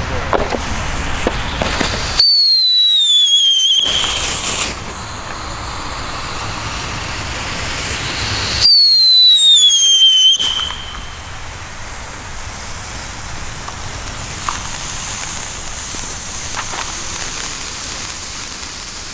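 A 'Pink Lady' novelty firework car burning on the ground with a steady hiss. It gives two whistles that fall in pitch, about two seconds and about eight and a half seconds in, each lasting roughly a second and a half. Toward the end its spark fountains spray with a brighter hiss.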